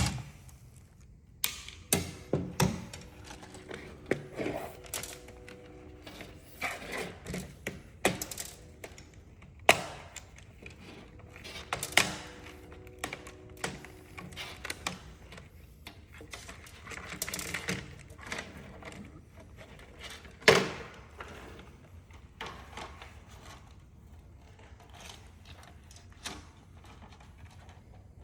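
A plastic computer keyboard being taken apart by hand: scattered clicks, knocks and scraping of the case and parts, with a few short squeaks.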